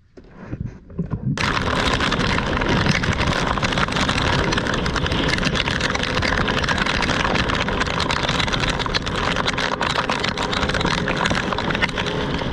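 A boat running through a rain squall: a loud, steady rush of wind, rain and engine noise that cuts in abruptly about a second in.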